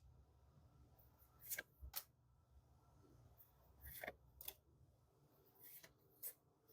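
Faint, scattered clicks and soft rustles of trading cards being handled and flicked through one by one, a few at a time, with near silence between them.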